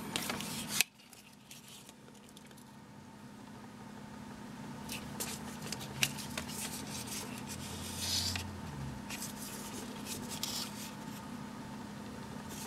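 Faint handling noise from a pair of plastic sunglasses turned in the fingers: a rustle at the start, then a few soft scrapes and clicks over a steady faint hum.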